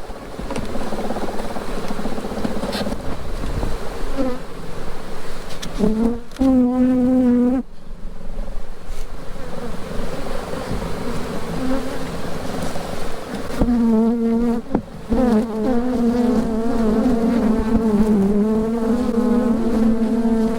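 Honeybees buzzing around an opened hive, a steady background hum, with single bees flying close past the microphone and giving a louder, steady-pitched buzz about six seconds in and again through the second half.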